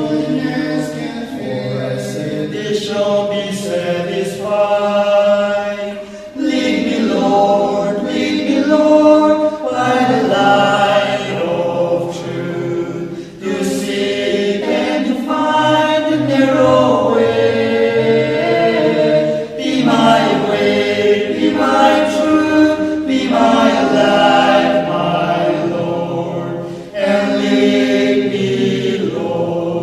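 A group of six men singing a hymn a cappella in harmony, phrase by phrase, with short breath breaks between the lines.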